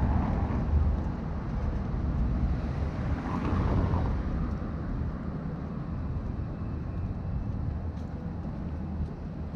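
City street sound: a steady low rumble of traffic with wind buffeting the microphone, swelling briefly just after the start and again about three and a half seconds in as vehicles pass.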